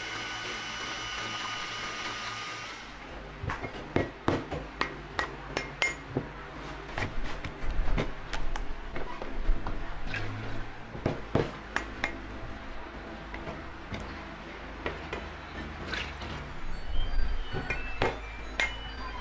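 A cordless drill with a whisk attachment runs at a steady whine, stirring liquid in a steel pot. About three seconds in it gives way to irregular sharp knocks and clinks of a knife chopping and trimming young coconuts on a steel table.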